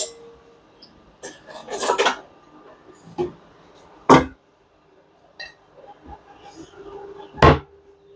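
Kitchen dishes, pots and utensils clattering in a series of separate knocks and clinks, the loudest about four seconds in and near the end.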